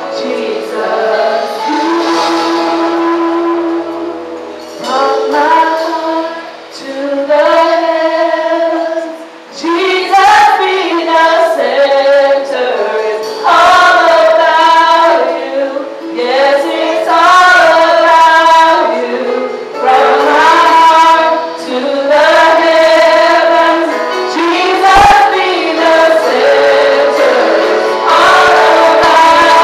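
Women singing a praise-and-worship song together through microphones, the phrases swelling and pausing every couple of seconds over a steady held backing.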